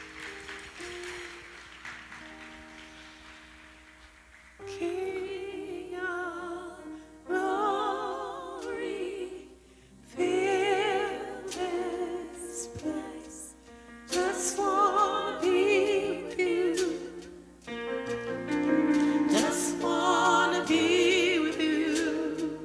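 A woman singing a slow gospel worship song with heavy vibrato, accompanying herself on an electric keyboard. The first few seconds are soft held keyboard chords, and the voice comes in about four and a half seconds in.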